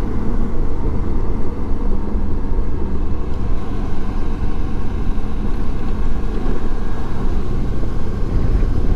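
Motorcycle riding along the road: a steady low rumble of engine and road noise with a faint even engine hum.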